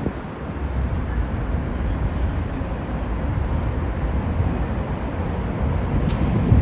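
Steady road traffic on a city street: the running and tyre noise of passing cars and buses, with a faint high whine briefly in the middle.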